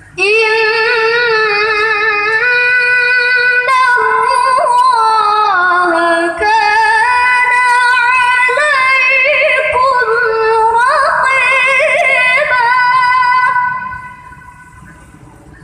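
A woman's voice reciting the Quran in melodic tilawa style into a handheld microphone. It is one long phrase of held, ornamented notes that ends about fourteen seconds in.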